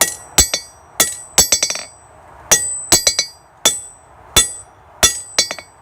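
Hand hammer striking hot titanium bar stock on a ringing steel anvil, with quick lighter rebound taps after several of the blows. The blows come at an uneven pace of one to two a second.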